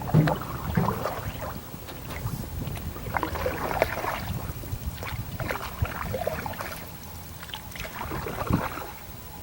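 Canoe paddle strokes and water splashing around the hull, uneven and irregular, with a few light knocks.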